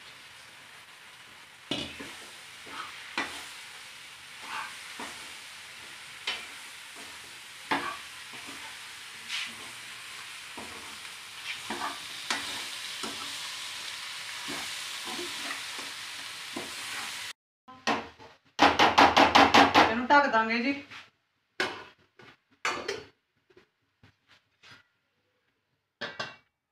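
Chopped summer squash (chappan kaddu) sizzling in a steel pot while a metal ladle stirs it, clinking against the pot about once a second. The sizzle cuts off abruptly about two-thirds of the way through. A loud, rapid pulsing sound follows for about two seconds, then a few knocks.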